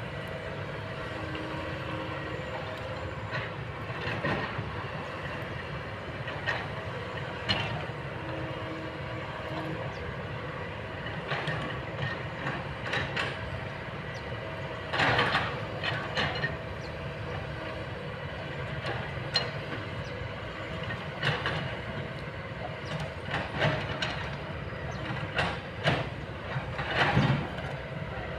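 Kobelco long-boom excavator's diesel engine running steadily, with irregular sharp metallic knocks and clanks over it, several of them louder than the rest.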